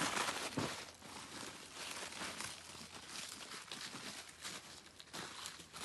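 Footsteps crunching on a thin layer of snow over dry fallen leaves, an irregular run of soft crunches.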